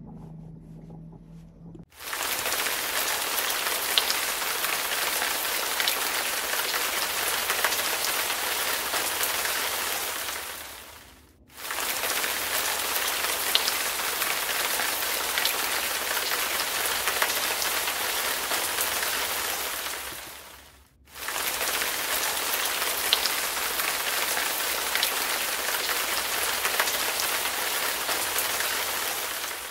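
Heavy rain pouring: a steady, loud hiss with scattered drop ticks. It starts about two seconds in after a faint low hum, then fades out and returns twice at even spacing, about ten seconds apart.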